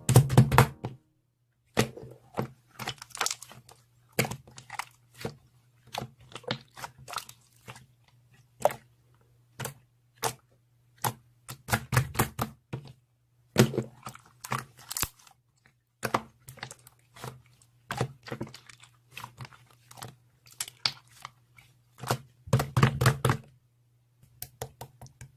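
Clear slime being squeezed and poked by hand, making irregular sharp clicks, pops and crackles, with denser runs of crackling now and then, over a faint steady low hum.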